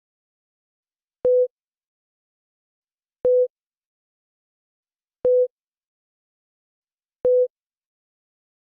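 Four short identical electronic beeps, one every two seconds, each a single steady mid-pitched tone, with dead silence between.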